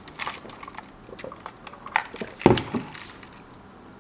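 Someone taking a drink to rinse the mouth: small clicks and handling noises of a cup or bottle, with one louder thump about two and a half seconds in.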